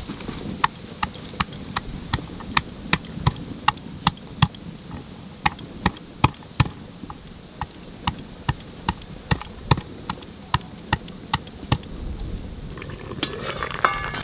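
Stone pestle pounding garlic and ginger on a wooden board: steady thuds about twice a second. In the last second, water boiling in a wok.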